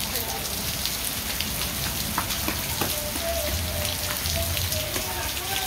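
Steady heavy rain falling, with the sharp ticks of drops landing close by.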